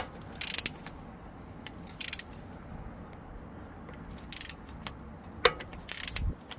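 Ratchet wrench clicking in four short bursts, about every two seconds, as the handle is swung back between pulls, with a few single sharp clicks in between; it is tightening a stiff-fitting oil pressure sensor into the engine block.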